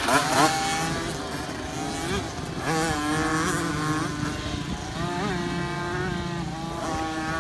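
Several 50cc two-stroke youth motocross bikes riding along the track, their engines revving with the pitch rising and falling as the riders work the throttle.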